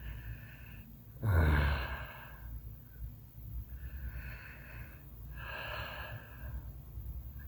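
A sleeping person breathing heavily through nose and mouth, with one loud snore about a second in, then several softer breaths.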